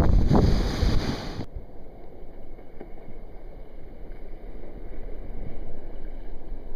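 Ocean surf splashing and rushing over a camera at water level, loud and rough with splash surges for about the first second and a half. Then the sound abruptly turns much quieter and muffled, a low rumble of water for the rest.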